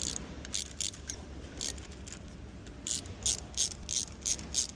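Quarter-inch drive ratchet clicking in short runs as it turns an M8 × 1.25 tap into a bolt hole, the clicks coming about three a second near the end.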